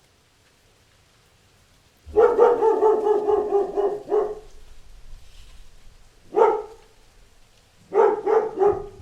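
Dog barking: a quick run of barks for about two seconds after a short silence, one single bark a little later, and three quick barks near the end.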